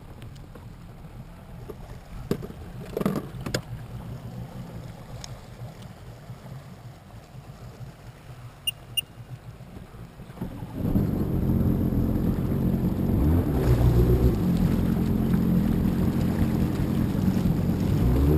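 Sea-Doo personal watercraft engine idling low, with a few sharp knocks about two to four seconds in, then opened up about ten and a half seconds in and running much louder and steadily as the craft gets under way.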